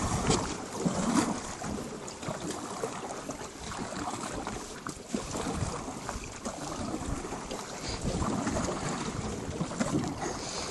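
Wooden paddles dipping and splashing in river water with hard, quick strokes, with wind buffeting the microphone.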